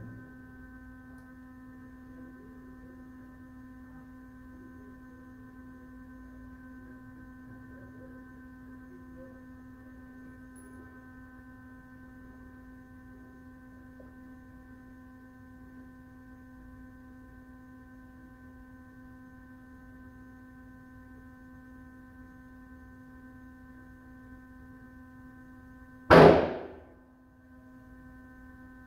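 A steady, pitched electrical hum with a row of overtones runs throughout. Near the end a single loud gunshot goes off, echoing in the indoor range.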